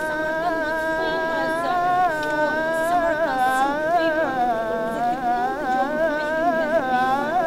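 Music from an Arabic song during a stretch with no singing. A single melodic line holds long notes and ornaments them with quick bends, over a lower accompaniment.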